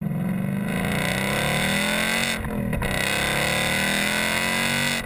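Supercharged 5.0-litre V8 of a 2019 Roush Stage 3 Ford Mustang accelerating, heard at the exhaust: a loud, steady engine note that rises in pitch, dips briefly about two and a half seconds in, then climbs again.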